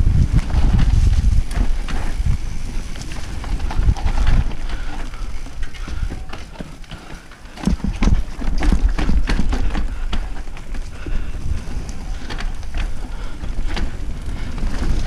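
Mountain bike riding fast down a dirt forest trail: wind buffeting the microphone over the rumble of the tyres, with many sharp clicks and rattles from the bike over bumps. It quietens for a second or two just past the middle, then picks up again.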